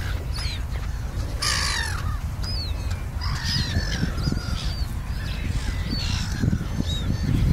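A flock of gulls calling, many short harsh cries overlapping, over a steady low rumble.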